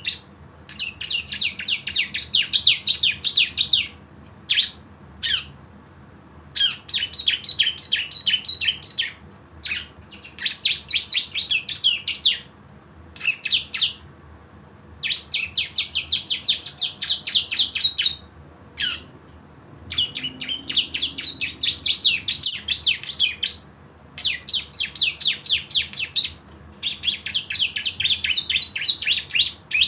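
Cisem prinia (a ciblek-type songbird) singing its fast rattling 'ngebren' trill: rapid even strokes, about ten a second, given in repeated bursts of one to three seconds. Single short notes and brief pauses come between the bursts.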